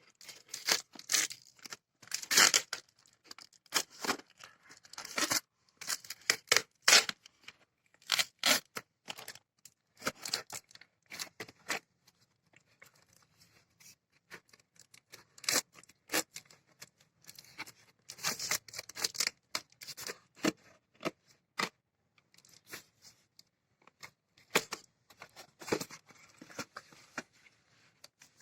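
Amazon shipping box and its packing being torn open by hand: cardboard and tape ripping in short, irregular bursts with brief pauses between.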